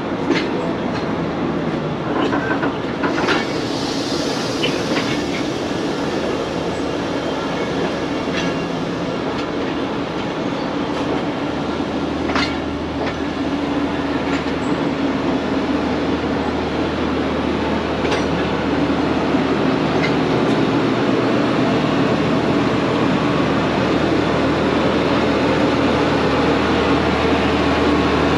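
A DS special passenger train rolling past: a steady wheel rumble with scattered sharp clicks and knocks. About twelve seconds in, a low steady locomotive engine drone joins and lasts to the end.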